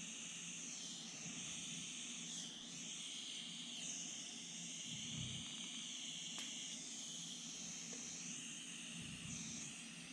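Butane pencil torch flame hissing steadily while soldering a brass carburetor float, the hiss wavering in pitch as the torch is moved over the joint.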